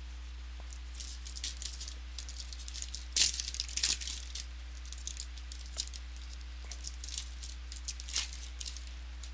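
Crinkling and crackling of a trading-card pack wrapper being torn open and the cards handled, in a string of short sharp crackles that is loudest about three to four seconds in.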